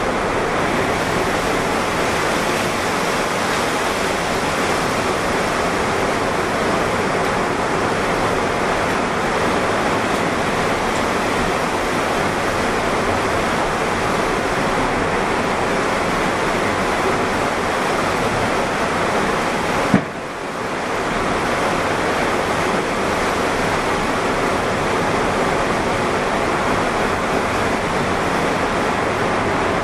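Steady rush of strong wind and heavy rain from an approaching tornado, the storm noise building shortly before the tornado hits. About twenty seconds in there is a short click, and the noise dips for a moment before coming back.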